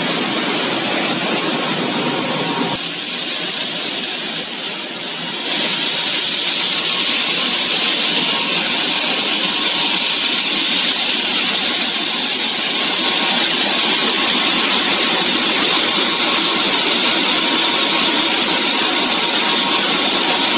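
French fries production line machinery running: a loud, even mechanical noise and hiss. About five and a half seconds in it shifts to a louder, brighter hiss, which then holds steady.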